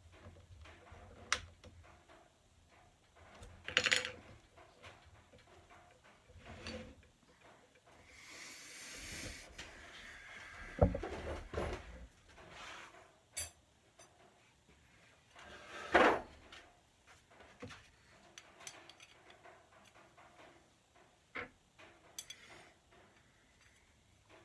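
Parts and tools being handled during assembly of a 3D printer kit: scattered clicks, knocks and a brief rustle, with two louder thumps about 11 and 16 seconds in.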